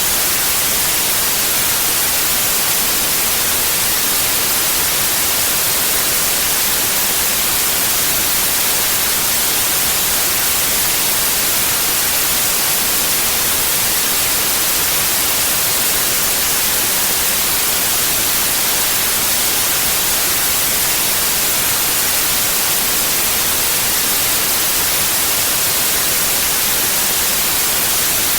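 Steady white noise: an even, unchanging hiss spread across all pitches, brightest in the treble.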